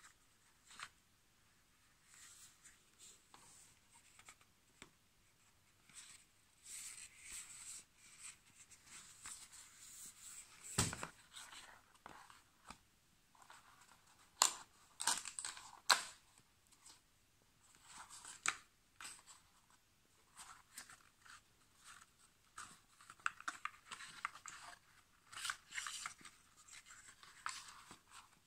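Handling of a smartphone's cardboard retail box and paper leaflets: intermittent rustling, scraping and crinkling, with several sharp clicks and knocks, the loudest about eleven seconds in.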